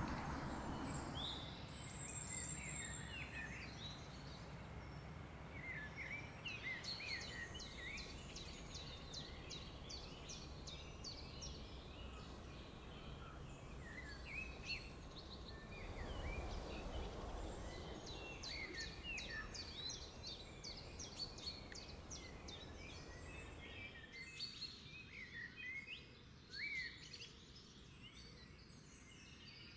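Small birds calling and twittering: many quick, high chirps and bursts of rapid ticking notes, over faint low background noise.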